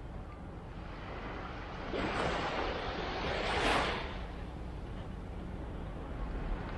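Harbour water washing and splashing against the shore, with one louder wash swelling up about two seconds in and falling away about two seconds later, over a steady low rumble.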